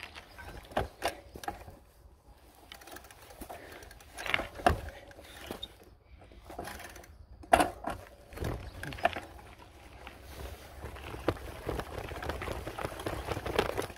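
Bicycle rattling and knocking as it is ridden over a rough dirt track, with irregular sharp knocks over a steady low rumble.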